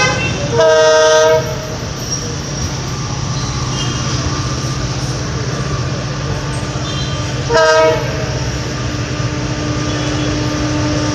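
WDP4 diesel-electric locomotive approaching and sounding its two-tone horn twice: a blast of nearly a second just after the start, then a short toot about seven seconds later, over the steady rumble of its diesel engine.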